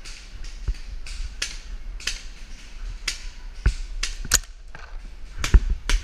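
Irregular sharp pops of paintball markers firing during a game, about a dozen, with the loudest few close together near the end.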